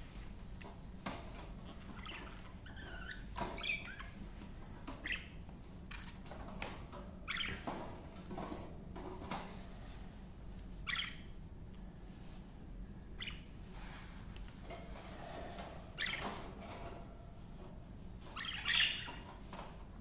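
Budgerigars chirping in short, scattered calls, with light clicks from a wire cage being handled.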